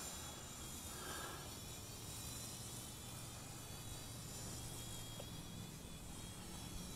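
Faint, steady buzz of a small Hubsan X4 H502 quadcopter's motors and propellers flying some distance away.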